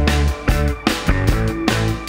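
Background rock music with a steady drum beat.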